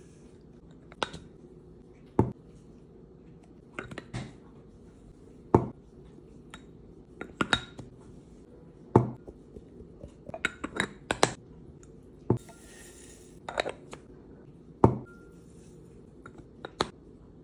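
Glass spice jars and plastic spice bottles being handled on a placemat-covered table: a series of sharp clinks and knocks as jars, bottles and bamboo lids are set down and tapped, some in quick clusters, with a short hiss of spice pouring about twelve seconds in.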